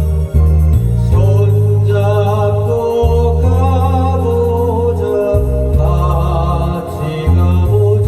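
A singer singing a Korean popular song over a backing track, held notes wavering with vibrato above a bass line that changes note about once a second.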